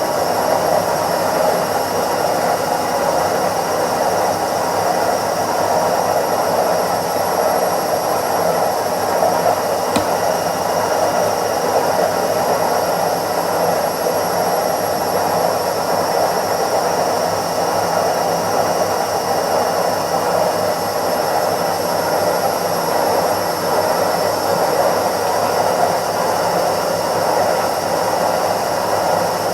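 Indesit IWC71252 washing machine on its spin cycle: a steady rushing drum noise with a thin, steady high whine over it.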